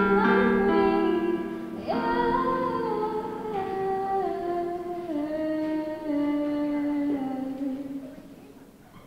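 Roland electric keyboard played with a piano sound: held chords under a slow melody that steps down note by note, dying away near the end.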